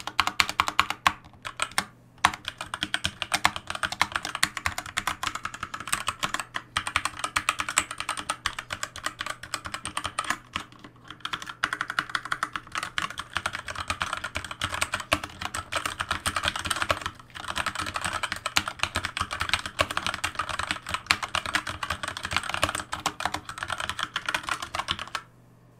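Typing on a Logitech K835 TKL aluminium-top mechanical keyboard with TTC Red linear switches: a dense, continuous clatter of keystrokes. There are brief pauses a few times, and the typing stops just before the end.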